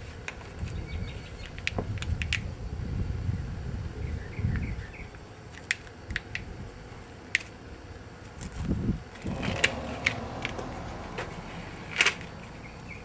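Hands working an old battery cable free: scattered light clicks and taps with rustling as the tape and the corrugated plastic loom are pulled off the cable.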